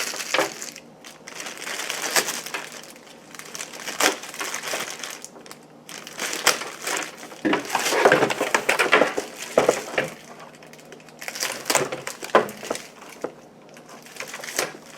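Plastic packaging bags crinkling and rustling in irregular bursts, with sharp crackles, as they are pulled off a keyboard's USB cable.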